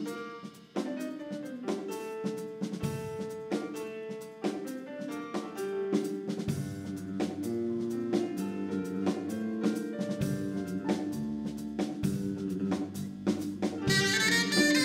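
Instrumental music: a melody of held notes on a wind instrument over drum hits, swelling louder and brighter about a second before the end.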